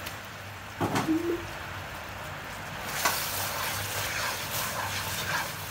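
Brown syrup bubbling and sizzling in a wok, with a wooden spatula scraping and stirring through it from about halfway. About a second in, a brief knock with a short low hooting tone stands out as the loudest sound.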